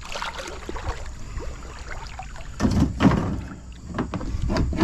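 River water sloshing and splashing around a kayak, with scattered knocks, louder about two and a half to three seconds in.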